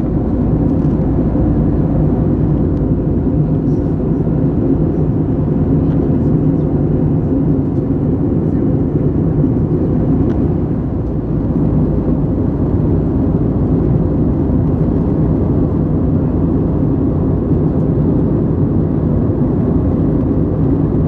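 Steady cabin noise of an Airbus A320neo in flight: an even rush of engine and airflow noise with a low, steady drone underneath.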